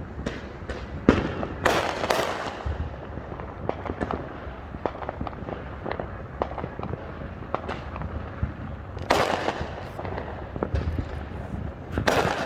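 Fireworks going off in quick succession: many sharp bangs and pops over a crackling background, with louder clusters of bursts about two seconds in, around nine seconds and near the end.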